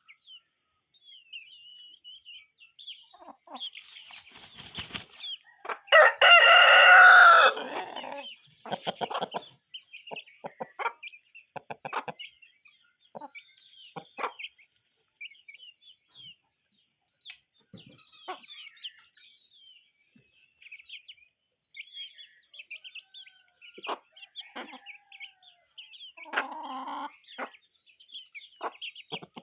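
Chickens clucking with short high chirps throughout, and a rooster crowing loudly once, about six seconds in, lasting about a second and a half. A shorter loud call from a bird comes near the end.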